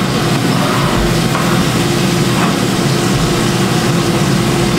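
A steady mechanical hum holding one low tone, with an even hiss over it.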